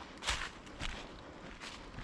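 Footsteps crunching on a woodland trail strewn with fallen autumn leaves, a walking pace of three steps.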